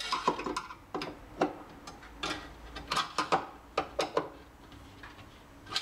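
Screwdriver loosening the adjusting screws on a kitchen cabinet door's concealed hinge, giving a run of small, irregular clicks and ticks.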